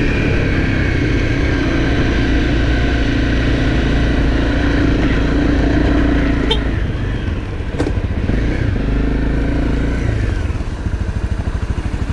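Honda CRF250 dirt bike's single-cylinder engine running steadily under throttle, with two sharp knocks partway through. In the last couple of seconds it drops to a lower, pulsing run.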